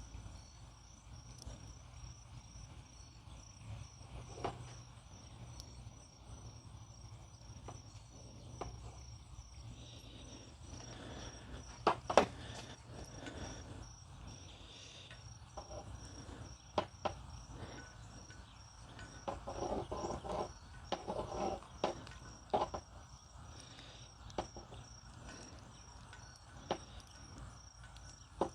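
A cricket chirping steadily, a thin high chirp repeating about twice a second, with scattered sharp clicks and handling noises of small parts over it, the loudest click about twelve seconds in.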